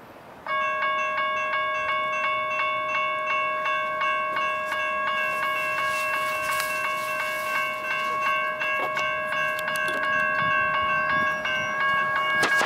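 General Signals Type 1 electronic crossing bell ringing in rapid, evenly spaced strikes. It starts suddenly as the crossing activates and the gates begin to lower, and stops about twelve seconds in once the gates are down.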